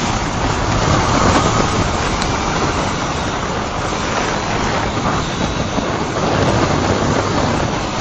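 Honda CBR125's small single-cylinder engine running as the motorcycle rides along, largely covered by a steady rush of wind and road noise.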